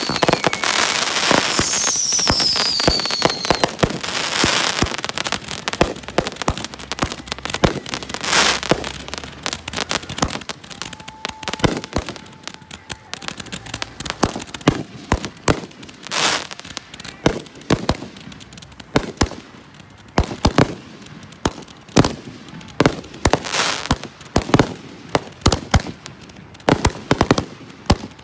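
Fireworks cakes and aerial shells going off in a long string of sharp bangs and crackling. The reports are dense at first and more spread out later, with a falling whistle in the first few seconds.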